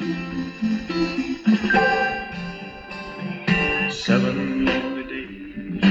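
Music with plucked guitar playing through a tube radio's speaker, fed from a Bluetooth source.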